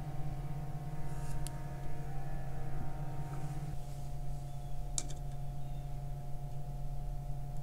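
A steady electrical hum, with a few faint clicks of small parts being handled.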